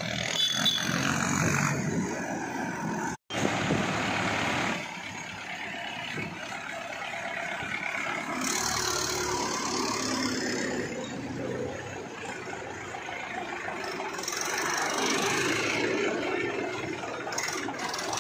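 Engines of a procession of Trakstar tractors running as they drive slowly in convoy, mixed with street traffic noise. The sound drops out for an instant about three seconds in.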